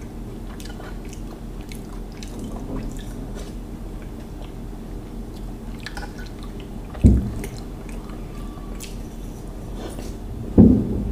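Close-miked wet eating sounds of a man spooning up and eating rabri, a thick milk dessert: soft smacking and squishing with faint light clicks. Two short, louder low mouth sounds stand out, about seven and ten and a half seconds in.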